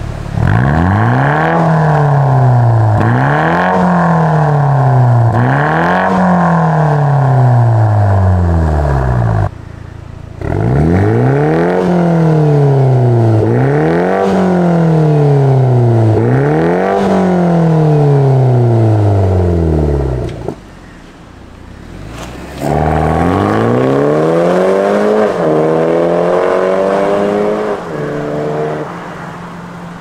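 BMW 330i's B48 turbocharged four-cylinder through a Fi Exhaust valvetronic cat-back, blipped four times in a row, each rev rising sharply and falling away more slowly, then after a short break four more blips; the first set is with the exhaust valves closed (comfort mode). Near the end the car pulls away under acceleration, its pitch climbing with a couple of drops as it shifts up.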